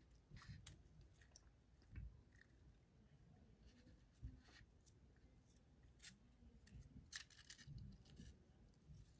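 Near silence with faint rustles and small, scattered ticks of fingers handling monofilament fishing line while tying a knot.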